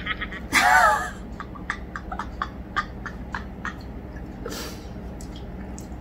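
A brief high-pitched laughing squeal, then a string of soft mouth clicks while drinking from a small plastic bottle, and a short puff of breath about four and a half seconds in.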